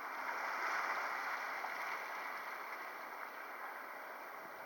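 Faint, steady outdoor background hiss with no distinct event, swelling slightly about a second in and then easing.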